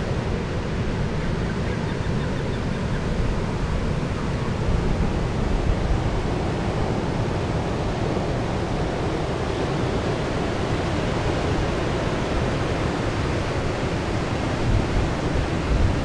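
Sea waves and wind rushing over the microphone: a steady, loud roar of noise with no distinct breaks.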